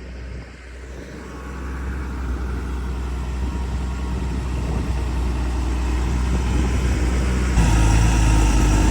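Farm vehicle engine running, growing steadily louder, then louder again near the end.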